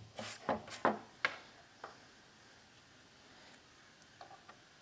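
A few light taps and rubbing sounds of hands handling a plastic center-console trim piece on a wooden workbench in the first second and a half, then near silence with a couple of faint ticks about four seconds in.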